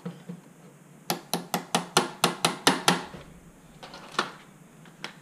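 Small hammer tapping out the front pin of an X01 PDW chassis: a quick run of about nine sharp metal taps, about five a second, then two or three single taps near the end.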